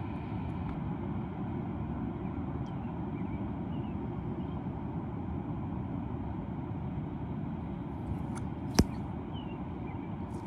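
Steady low, even rushing noise of an outdoor lakeshore, with a few faint short chirps and a single sharp click a little past three-quarters of the way through.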